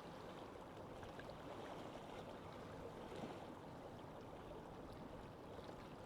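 Lake ambience: water lapping with wind, a faint steady wash.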